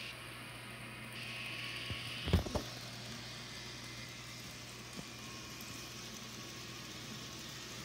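Battery-powered toy train running along plastic track with a quiet steady hum, broken by a sharp double knock about two and a half seconds in and a small click about five seconds in.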